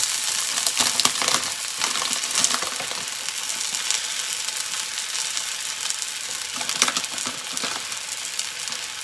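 Cha soba noodles frying in sesame oil on a hot electric griddle: a steady sizzle with scattered crackles, as the noodles crisp on the plate.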